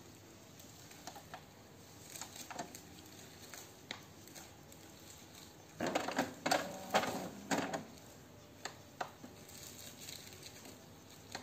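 Epson L3210 ink-tank printer's mechanism running briefly, with a cluster of clicks and whirring for about two seconds just after its power button is pressed, about six seconds in. Scattered light clicks come before and after.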